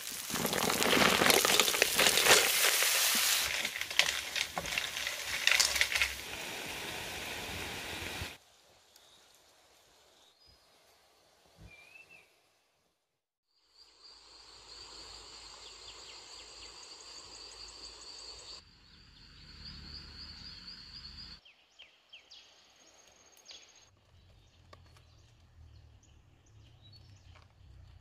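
Lemongrass and shallots sizzling in a hot wok, loud with crackles, for about eight seconds. After a brief silence, forest ambience follows with a steady high-pitched insect buzz for several seconds, then quieter outdoor sounds.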